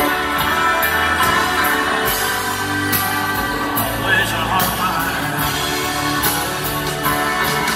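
Live band playing a slow country ballad: electric guitars, keyboards and drums, with a voice singing. Heard from the crowd through the arena's PA.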